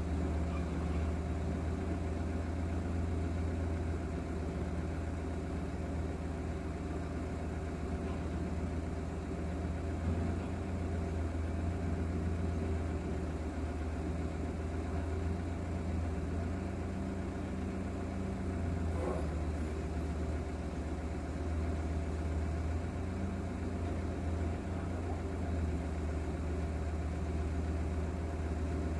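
An engine idling steadily, heard from inside a vehicle cabin: a constant low hum that holds the same pitch and level throughout.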